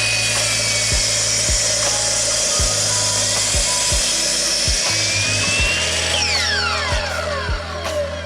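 Electric saw running and cutting wood, its whine rising and dipping, then winding down about six seconds in; background music with a steady beat plays under it.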